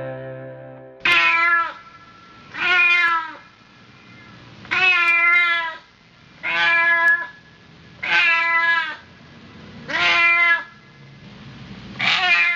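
Domestic cat meowing over and over: seven similar meows, each under a second long, about one every 1.5 to 2 seconds. Music fades out in the first second.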